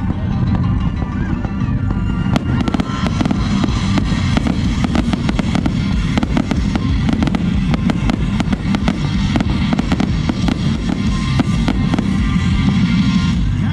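Aerial fireworks going off, with many rapid sharp pops and crackles from about two seconds in, over steady music.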